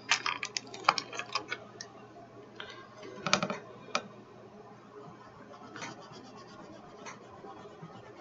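Lacquered woodless watercolour pencils clicking and clattering against each other and their plastic case as one is picked out, with a louder clatter about three seconds in. Then the pencil scratches back and forth on mixed media paper.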